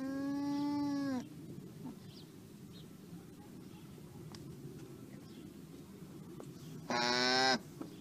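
Alpaca calling twice: a steady pitched call about a second long that dips slightly in pitch at its end, then a shorter, louder call near the end, over a faint outdoor background.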